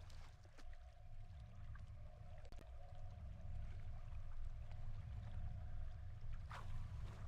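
Steady low rumbling background noise with a faint constant hum, broken by a couple of soft clicks, the second one about six and a half seconds in.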